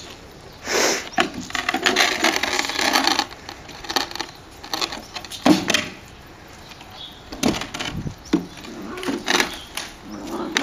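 A wooden play board rocking and scraping on brick paving under Airedale Terrier puppies, with paws scrabbling on the wood. A long scraping stretch starts about a second in, and several sharp wooden knocks follow in the second half.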